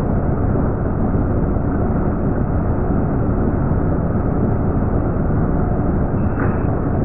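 Metal lathe turning a workpiece while the cutting tool takes a cut, heard as a steady, deep rumbling noise with no distinct tones.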